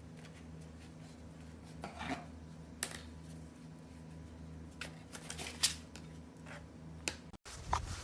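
Faint steady low hum with a few scattered small clicks and rustles.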